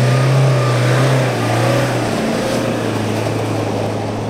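Mahindra Thar's engine held at high revs under load as it climbs through soft dune sand, its wheels churning up sand. The engine note dips slightly about a second and a half in.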